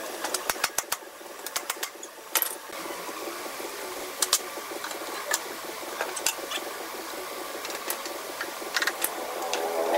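Scattered sharp wooden knocks and clatters as hardwood door pieces are handled and set down on a concrete floor, some in quick runs of several clicks, over a steady background workshop noise.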